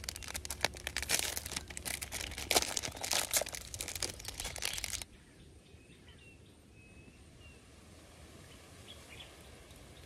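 Plastic snack wrapper crinkling and crackling loudly as it is opened by hand, cutting off suddenly about halfway through. Then quiet outdoor background with a few faint bird chirps.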